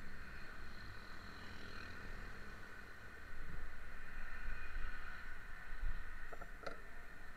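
Roadside traffic ambience: passing cars and motorcycles as a steady low rumble and hiss, growing louder about three seconds in, with a couple of short clicks near the end.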